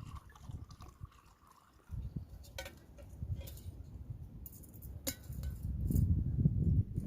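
A few light clinks and knocks over a low rumble that swells near the end.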